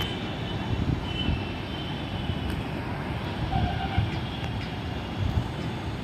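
Steady rumble of distant city traffic, with uneven low surges.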